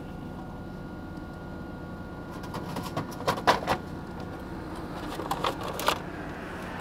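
Vending machine humming steadily, then a few sharp clicks and knocks as the clear plastic flap of its delivery bin is pushed open, and more clicking and rattling about two seconds later as a plastic food tray is pulled out through it.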